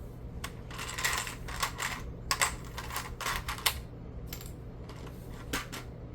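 Small plastic Lego pieces clicking and rattling as they are handled and sorted, in irregular sharp clicks with a few short clusters, over a steady low hum.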